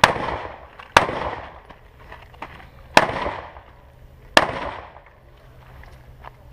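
Four rifle shots fired during a match stage, unevenly spaced, about one, two, then one and a half seconds apart, each a sharp crack followed by a rolling echo.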